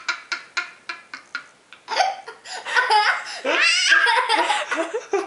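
A young girl's fit of laughter in quick, even bursts that fade out about a second and a half in, then breaks out again louder with a man laughing along.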